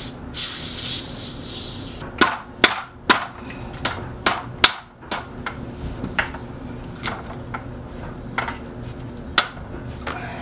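Mallet tapping the bottom of a RockShox Zeb mountain-bike fork's lower legs, about a dozen sharp knocks at irregular intervals, to knock the shafts free so the lowers can slide off for service. A brief hiss fades out in the first second or so.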